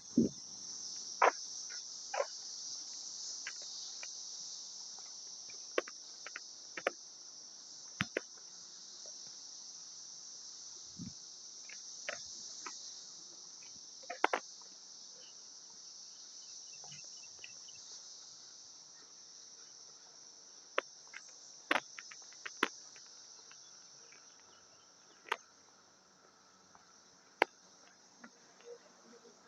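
Cicadas calling in chorus: a steady high-pitched drone that slowly fades toward the end, with scattered sharp taps and clicks over it.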